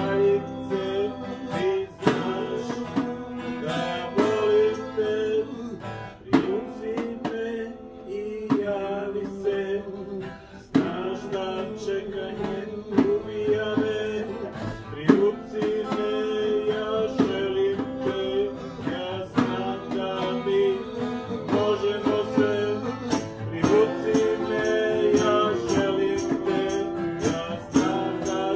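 A guitar strummed in a steady rhythm, accompanying a group singing a song in unison.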